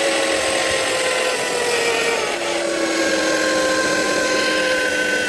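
Electric drill boring through the steel bumper, the motor running continuously with its pitch slowly sagging under load.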